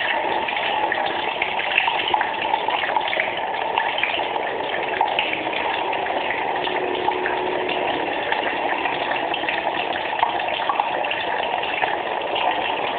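Tap water running steadily over a Swiss army knife as it is rinsed, with small irregular splashes and ticks.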